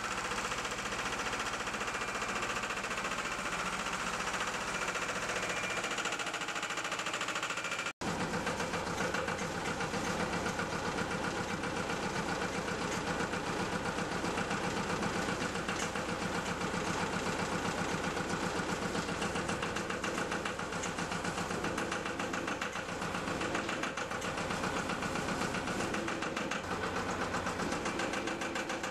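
Bobcat M611 skid-steer loader's engine running while the machine works. About eight seconds in the sound cuts to an even, rhythmic engine beat that carries on steadily.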